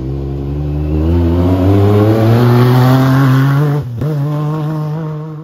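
Off-road vehicle engine accelerating on a dirt track, its pitch climbing steadily. It drops out briefly about four seconds in, then runs on at a steady pitch and fades out near the end.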